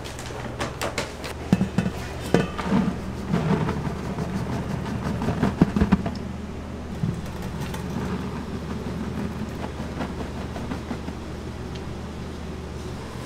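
Kitchen machinery humming steadily low, with a run of knocks and clattering between about one and six seconds in.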